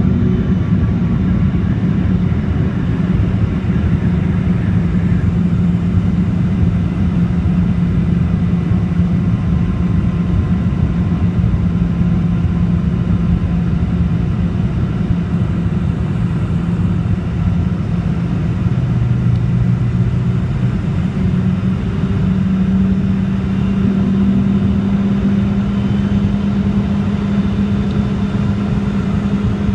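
Steady cabin drone of a Boeing 717's rear-mounted Rolls-Royce BR715 turbofan engines, heard from inside the passenger cabin: a low rumble with a steady hum. The engine note shifts slightly about two-thirds of the way through.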